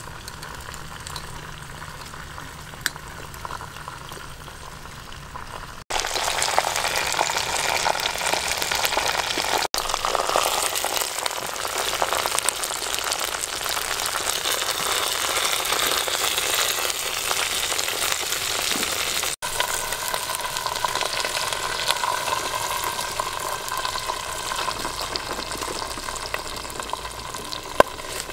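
Chicken pieces frying in hot oil in a pot, a steady sizzling crackle. It is quieter for about the first six seconds and much louder after a sudden cut.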